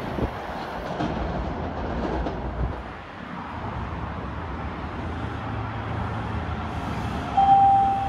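Washington Metro train rumbling on the rails as it pulls away from the platform, fading after a few seconds into a lower hum. Near the end a steady high tone sounds twice in quick succession.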